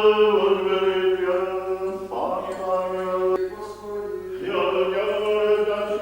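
Russian Orthodox liturgical chant: voices hold long drawn-out notes over a steady lower note, in three slow phrases.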